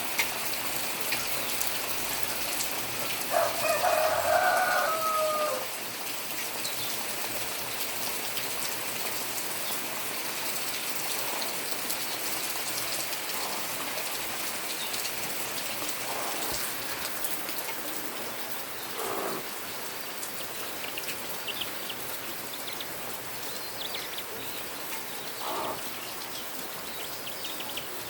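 Steady rain-like hiss, with a rooster crowing once about three seconds in, its call falling at the end. A few fainter bird calls come later.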